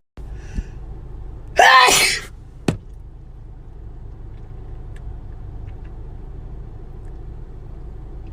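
A person sneezing once, loudly, about a second and a half in, followed a moment later by a brief sharp sound. A steady low hum runs underneath.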